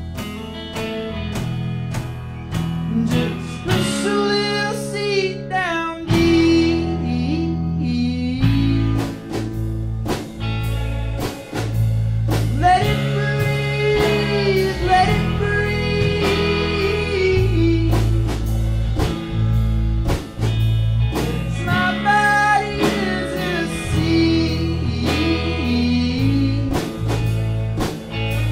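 Live rock band playing: a Telecaster-style electric guitar over a steady beat, with a man singing in several phrases.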